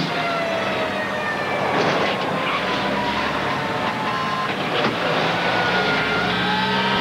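Several fire-engine sirens wailing at once, their pitches slowly rising and falling and overlapping, over a low engine rumble. There are two sharp knocks, about two seconds in and again near five seconds.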